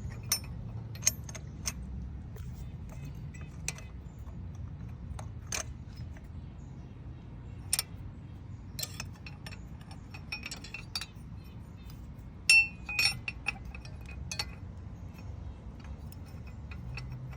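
Scattered light metallic clicks and clinks of engine parts and tools being handled as an intake manifold with new gaskets is fitted to a Harley-Davidson Shovelhead engine, with a louder ringing clink in the later part, over a steady low hum.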